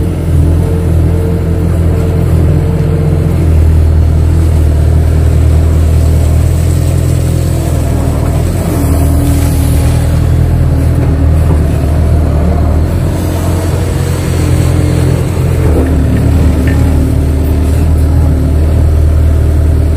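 Diesel engine of a KATO crawler excavator running steadily under working load, heard from inside the operator's cab. Its low hum holds while the tone above it shifts a few times as the arm digs mud and swings to dump it.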